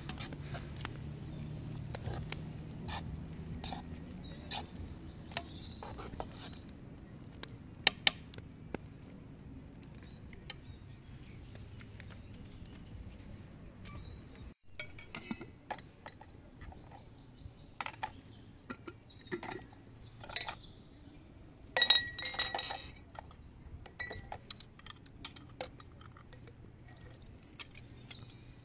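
Metal ladle and skimmer clinking against a large steel cooking pot of thick grated-carrot mixture, along with glass jars clinking, in scattered sharp clinks. A cluster of ringing clinks about two-thirds of the way through is the loudest.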